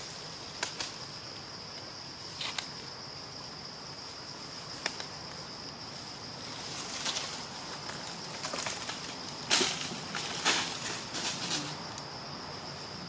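Forest ambience: a steady high insect buzz, with scattered sharp rustles and crackles of leaves and branches, the loudest about three-quarters of the way through.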